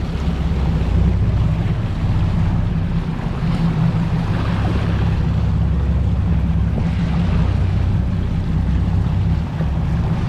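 Sportfishing boat's engine running with a steady deep drone, with water rushing and wind buffeting the microphone.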